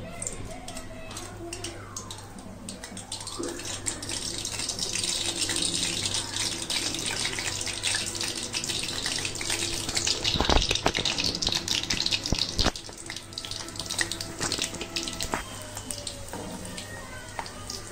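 Batter-coated cauliflower pakoras deep-frying in hot oil in a kadai: a dense sizzle and crackle of bubbling oil that swells a few seconds in as more pieces go in, then eases off toward the end. A couple of knocks come in the middle, over a low steady hum.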